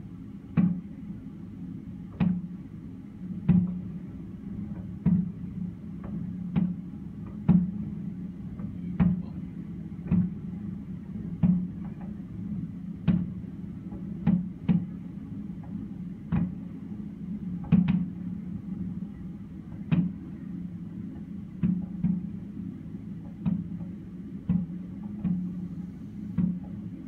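Aerial fireworks shells bursting: a dull boom about every second and a half, over a steady low hum.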